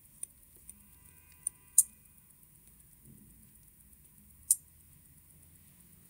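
Small metal watchmaker's tool clicking against the parts of a watch movement and its calendar dial: five short, sharp ticks, the loudest about two seconds in and another about four and a half seconds in, with a faint thin metallic ring in between.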